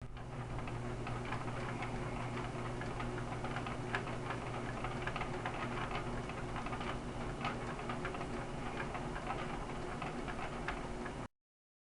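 Rain falling, many small drops ticking irregularly on a hard surface, over a steady low electrical hum. The sound cuts off suddenly near the end.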